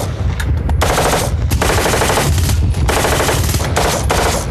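M16 rifle fired on full automatic in four or five rapid bursts, each about half a second to a second long, with short pauses between them.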